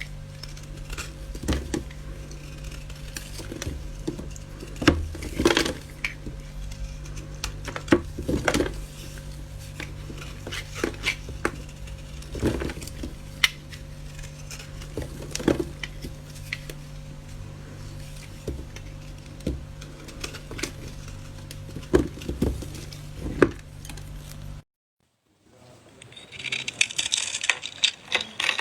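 Irregular sharp clicks and knocks of hard objects over a steady low hum. Near the end it cuts out abruptly, then a hissing, crackling sound begins.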